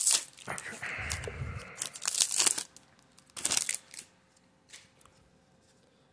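Foil wrapper of a baseball trading-card pack crinkling and tearing as the pack is opened, with another sharp rustle of wrapper and cards about three and a half seconds in. After that it is nearly quiet, with one faint tick of cards.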